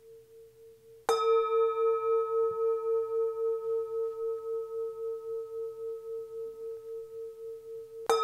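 Singing bowl struck about a second in, ringing on as a pulsing tone that slowly fades, then struck again near the end.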